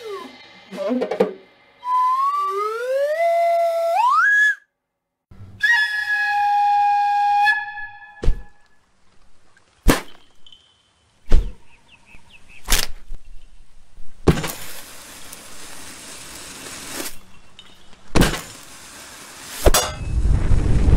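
A string of cartoon sound effects, one after another. First a slide whistle rises in steps, then a held whistle note. Several sharp single knocks follow, then two longer bursts of hiss.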